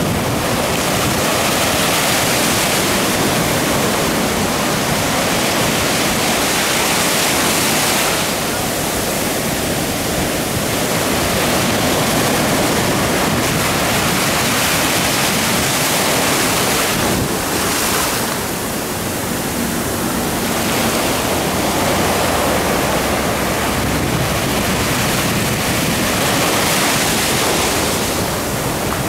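Ocean surf breaking and washing in continuously over a shallow sandy shore, a steady rush of white water that eases briefly a couple of times before building again.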